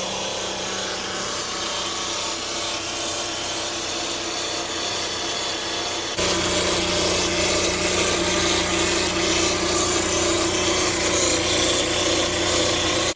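A 2019 Chevy Cruze 1.4 turbo running with a loud, steady grinding, rasping noise from under the hood, which gets louder about six seconds in. A new purge valve has not cured it, and the owner suspects the transmission.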